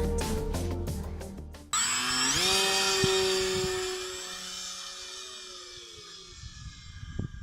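Background music stops about a second and a half in. A small electric motor then spins up with a rising whine, runs steadily for about two seconds, and winds down slowly, its pitch falling as it fades.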